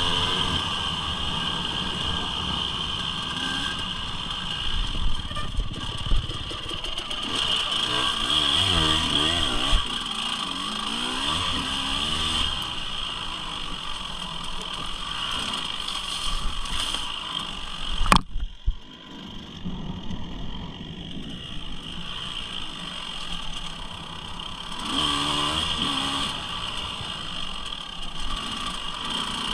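Motorcycle engine running while being ridden, its pitch rising and falling with the throttle. About two-thirds of the way through there is a sharp click and a brief drop in level.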